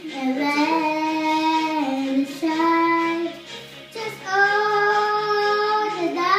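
A young girl singing karaoke over a backing track, holding long sung notes that step up in pitch, the highest held near the end.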